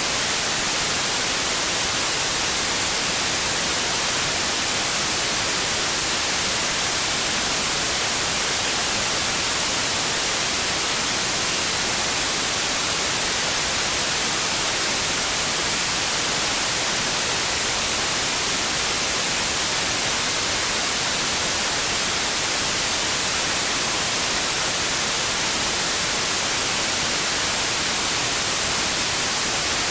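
Steady synthetic white noise, an even hiss with most of its energy in the high frequencies and no change in level.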